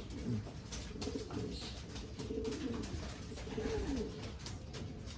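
Racing pigeons cooing, a series of low wavering coos, with scattered light clicks and scuffles.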